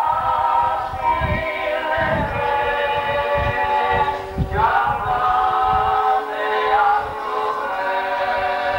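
Choir singing long held notes that slide between pitches, with irregular low thuds underneath.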